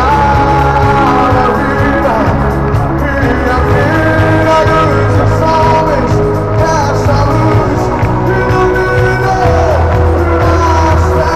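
Live band playing gospel worship music with singing, amplified over a stadium sound system; a deep bass comes in right at the start under held chords and the sung melody.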